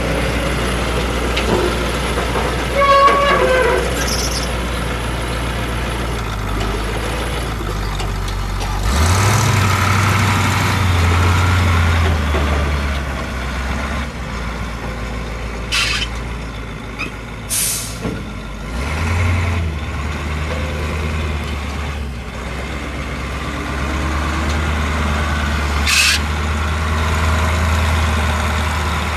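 Caterpillar 3208 V8 diesel engine of a 1983 Ford 8000 truck running as the truck drives slowly, revving up twice, about nine and nineteen seconds in. Short sharp hisses of the air brakes come a few times in the second half.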